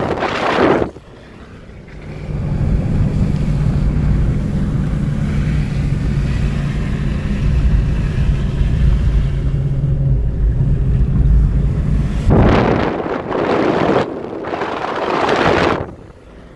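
A car driving with its window open: a steady engine and road drone, with wind buffeting the microphone in loud gusts at the start and twice near the end.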